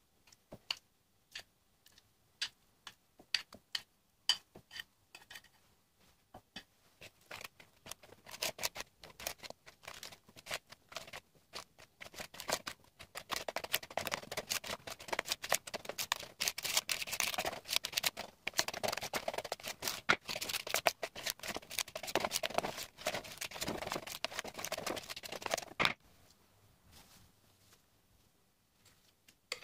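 A hand-held utensil stirring mascarpone into beaten egg yolks and sugar in a glass bowl, clicking and scraping against the glass. Scattered clicks at first, then quick continuous beating that stops abruptly a few seconds before the end.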